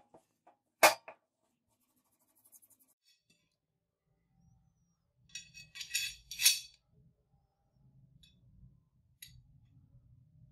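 Metal clinking as a brass guard is slid onto the steel tang of a butcher's chopper blade, a quick run of bright clinks and clicks around six seconds in. A single sharp click comes about a second in, and a fainter one near the end.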